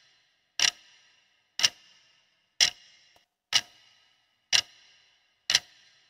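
Countdown-timer sound effect: a clock ticking once a second, six sharp ticks, each with a short ringing tail, counting down the seconds left to answer.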